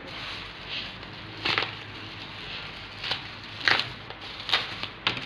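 Packaging being handled while a replacement phone screen is unboxed: about five sharp crinkles and crackles over a low steady hiss.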